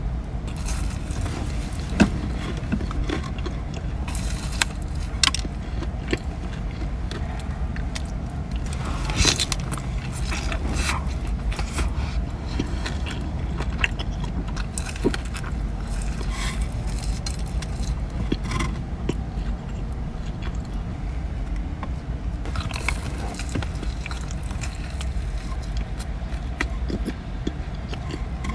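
Close-up eating sounds: bites and chewing of donuts, with small crackles and clicks, over a steady low rumble.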